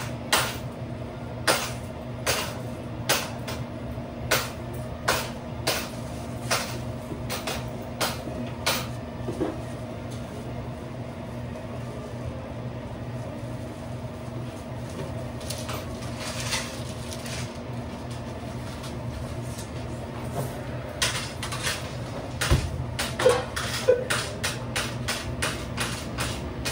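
Sharp knocks on a food-prep counter, about one every 0.8 seconds for the first nine seconds, then only now and then, with a quicker run near the end. A steady mechanical hum runs underneath.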